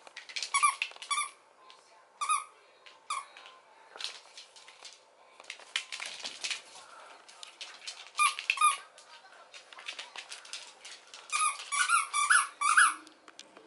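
A squeaky toy squeezed again and again: short high squeaks, one at a time or in pairs, then a quick run of them near the end, with light rustling between.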